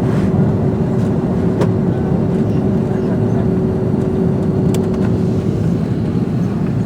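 Airbus A330-200 cabin noise: the steady, loud rush of jet engines and airflow heard from inside the cabin, with a steady hum that fades out about five seconds in and a couple of faint clicks.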